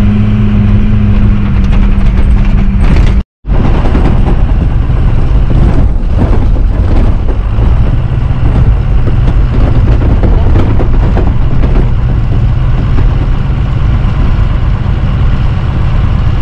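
SUV engine running under load with the cabin rattling and jolting as it drives over a sandy off-road track, heard from inside the vehicle. The sound cuts out for a moment a little over three seconds in, then picks up again.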